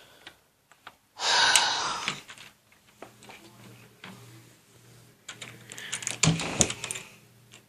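A man's long breathy sigh, about a second long, followed later by a run of clicks and a couple of dull thumps, typical of handling a door or lock.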